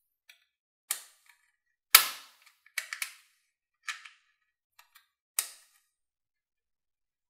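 Plastic toy guns being handled and worked: a series of about nine sharp plastic snaps and clicks at irregular intervals, the loudest about two seconds in.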